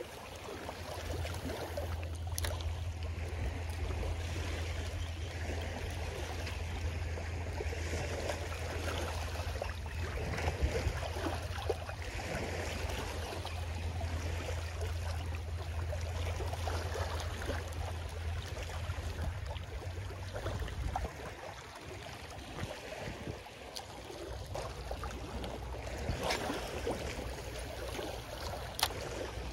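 Small waves washing on a shallow sandy beach, with wind rumbling on the microphone until about two-thirds of the way through. A few sharp clicks sound near the start and near the end.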